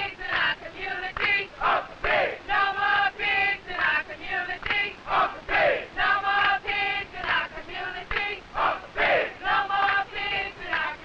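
A crowd of demonstrators chanting together in unison, in short phrases that repeat in a steady rhythm.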